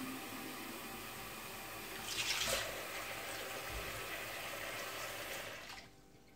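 Water running from a kitchen tap into a steel sink and a plastic bottle, with a louder splash about two seconds in. The flow cuts off near the end as the tap is turned off.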